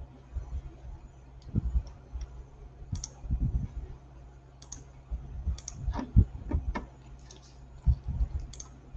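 Irregular clicks and taps at a computer's mouse and keyboard, with a few soft low thumps, coming more often in the second half, over a steady low hum.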